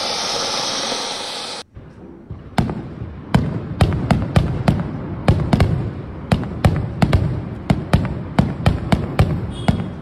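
Fountain firework (anar) hissing steadily as it sprays sparks, cut off abruptly about two seconds in. Then a ground firework going off in a quick, irregular run of sharp cracks and bangs, two or three a second, with a low rumble beneath.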